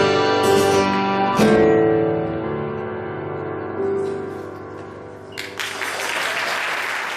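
A small band of acoustic guitar, electric guitar and drum kit strikes the closing chords of a piece, the last chord ringing out and fading. Applause starts about five and a half seconds in.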